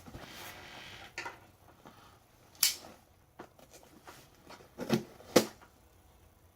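A cardboard mail package being handled and opened: a rustle for about the first second, then a few sharp knocks and clicks, the loudest about five seconds in.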